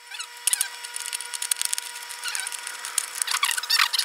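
Hand-made replica of the 1855 Yates lever can opener, its steel blade levered through a tin can's lid in short strokes: rapid scraping and tearing of thin metal, with a few squeals about three seconds in.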